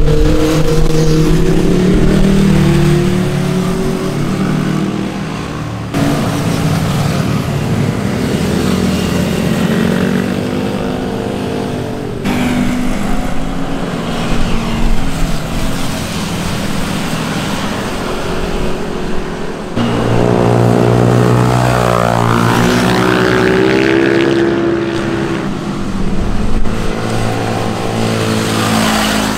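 Motorcycle engines passing by and revving, their pitch climbing and falling as each bike goes past, in several short clips with abrupt cuts about 6, 12 and 20 seconds in.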